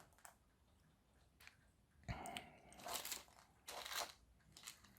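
Close handling of a small plastic wire connector and its leads: a few faint clicks, then several short bursts of rustling from about two seconds in.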